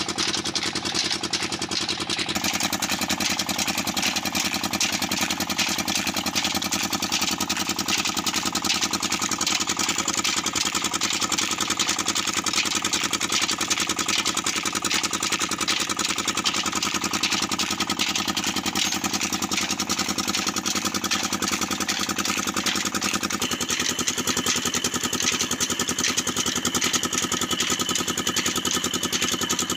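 Small stationary diesel engine running steadily with a rapid, even beat, turning flat belts and line-shaft pulleys.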